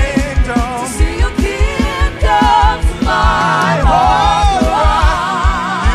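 Gospel worship music: a singer holds and bends wordless sung notes with vibrato over a steady pulsing bass beat.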